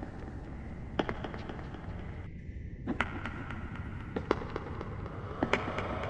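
Irregular sharp cracks and clicks, a few each second or so, over a steady low rumble.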